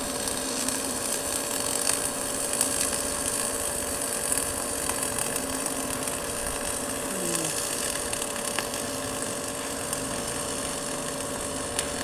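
Stick-welding arc burning steadily: an even crackling hiss with many small pops. A steady hum runs underneath.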